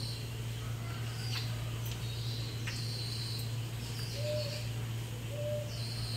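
Short, high-pitched squeaky animal calls repeating every second or so, with two brief lower hooting notes in the second half, over a steady low hum.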